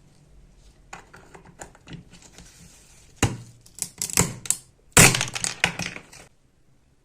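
Restored antique hand-operated kitchen cutting machine in use, giving a series of crunching cuts and sharp clacks. The loudest come about three to five seconds in, and they stop about six seconds in.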